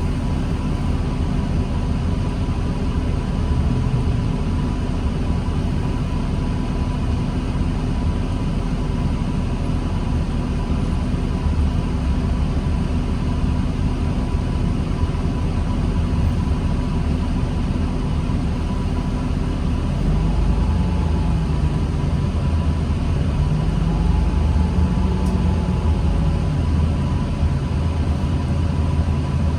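Diesel engine of a 2009 New Flyer D40LFR transit bus heard from inside the bus: a steady low drone with a constant thin high whine. About twenty seconds in, the engine pitch rises and falls a few times, then settles.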